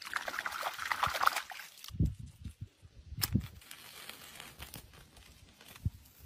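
Water sloshing and splashing as a hand scoops in shallow water for about two seconds, then a few dull knocks and a sharp click from handling.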